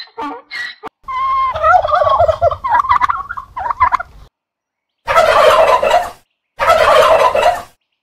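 Domestic turkey tom gobbling: a long, wavering gobble starting about a second in, then two shorter gobbles of about a second each after a brief pause.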